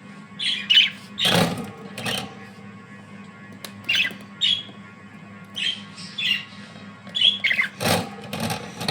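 Budgerigars (Japanese Hagoromo budgies) calling: a scatter of short chirps with a few louder, harsher squawks, over a steady low hum.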